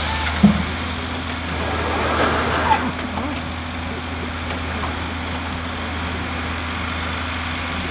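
Engine of a boom-and-grapple logging machine running steadily at idle. There is a sharp knock about half a second in.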